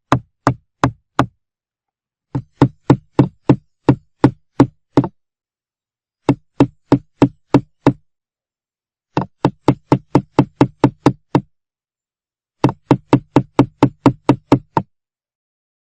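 A hammer striking, in runs of five to eight sharp blows at roughly three a second, each run broken off by a pause of about a second.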